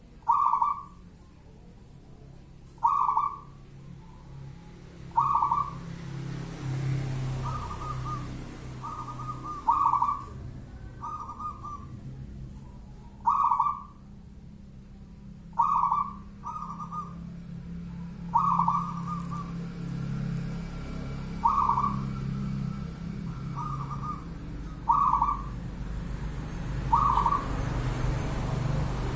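A local-strain zebra dove (perkutut) in a cage cooing: short, clipped cooing phrases repeated every one to three seconds, over a dozen of them, some in quick pairs. A steady low hum runs underneath.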